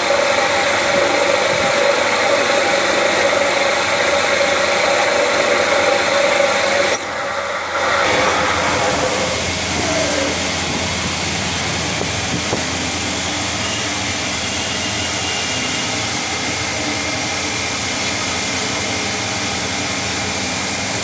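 CNC special-purpose machine tool running, a steady mechanical hum with a hiss over it. About seven seconds in it briefly drops off, then resumes a little quieter and more even.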